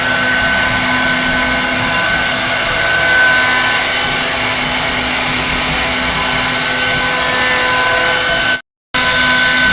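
CNC router spindle running and cutting wood: a steady high whine over a hiss. The sound cuts out for a moment near the end and comes back unchanged.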